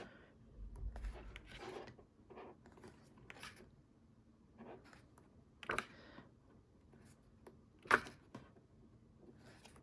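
Soft paper rustling and handling as pages of an album photobook are turned, with scattered light clicks and two sharper page snaps in the second half.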